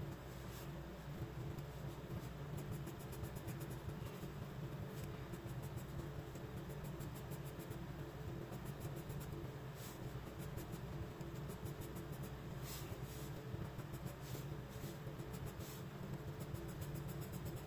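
Graphite pencil scratching across sketchbook paper in quick, short hatching strokes that come in clusters, over a steady low hum.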